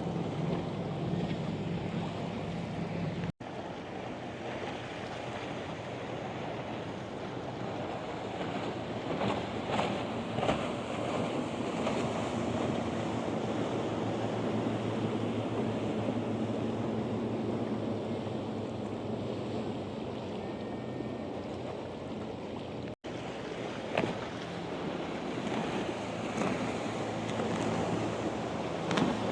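Steady wash of wind and inlet water with the low hum of motorboat engines running past. The sound drops out abruptly twice, briefly.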